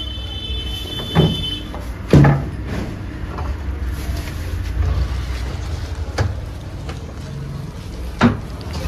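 Steady low rumble of road traffic, with four sharp knocks spread through it. A thin high steady tone stops about two seconds in.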